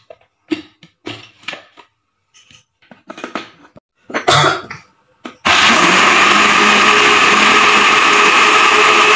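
A few short knocks and clatters as the blender jar is handled, then about five and a half seconds in an electric kitchen blender's motor starts abruptly and runs steadily at full speed, blending milk and chikoo into a shake.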